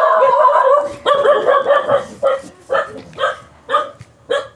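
A dog barking: two drawn-out, pitched barks of about a second each, then a run of five short barks about two a second that grow fainter.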